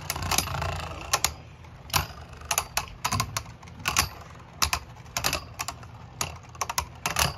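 Two Beyblade Burst spinning tops clashing in a plastic stadium: an irregular run of sharp clacks, about two or three a second, as they knock together, over a low steady hum.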